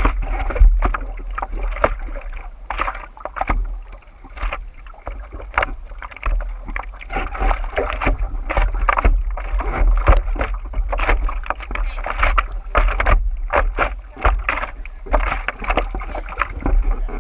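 Sea water sloshing and splashing against a surfboard-mounted camera in irregular bursts, over a steady low wind rumble on the microphone.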